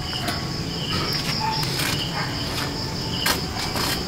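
Insects chirring in a steady, high, unbroken drone, with a couple of faint clicks.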